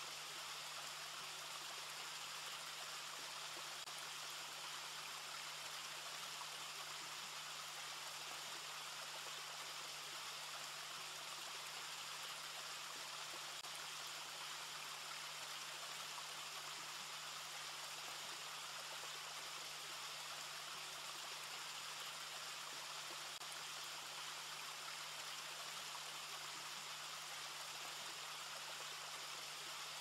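Faint, steady hiss with a low, even hum beneath it; no bird calls or splashes.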